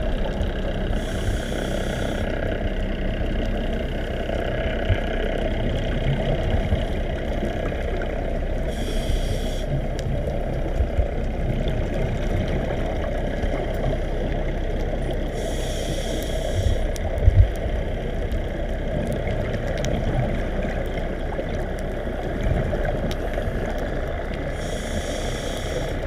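Steady, muffled underwater rumble heard through a camera housing. Four times, about every seven to eight seconds, comes the brief hiss of a scuba diver's breath through the regulator. A couple of dull knocks come about two-thirds of the way through.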